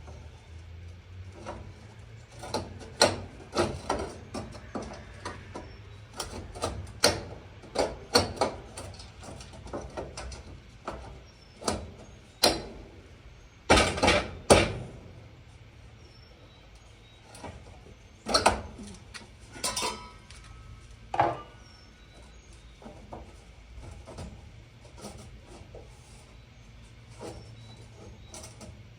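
Irregular metal knocks and clanks from parts of a 1940s Universal stove being handled and cleaned. The loudest knocks come about halfway through, and a couple about two-thirds of the way in ring briefly.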